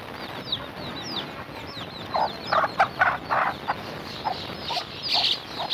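Chicks peeping steadily in quick, high, falling chirps, with the mother hen clucking several times in the middle.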